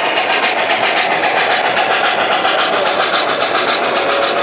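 Model train passenger cars rolling past, their wheels clicking rapidly and evenly over the rail joints above a steady rolling whir.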